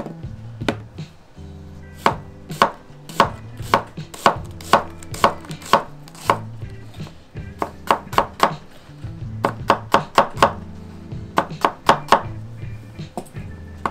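Kitchen knife slicing an onion thinly on a wooden cutting board: each cut goes through the onion and ends in a sharp knock of the blade on the wood, in runs of about two a second with short pauses. Soft low background music plays underneath.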